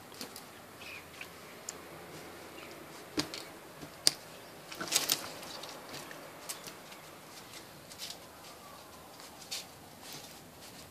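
Scattered sharp taps and clicks with brief rustling as a hooded crow and a small dog shift about on a wicker chair and a wall ledge; the loudest tap is about four seconds in, followed by a short flurry of rustling.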